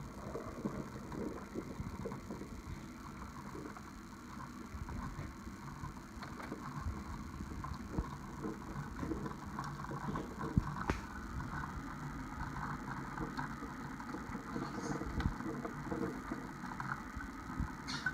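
Coffee machine running with an irregular mechanical rattle and occasional sharp clicks.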